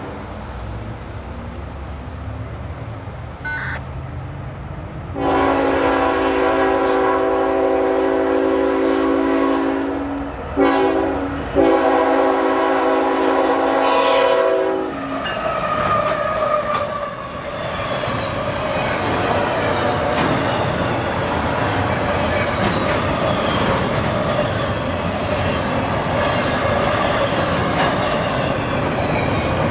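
Nathan K5HL five-chime air horn on a GE ET44AH freight locomotive sounding for a grade crossing. It comes in about five seconds in as a long blast, breaks off briefly twice and ends about fifteen seconds in. The locomotives then pass and double-stack container cars roll by with wheels clattering over the rail joints.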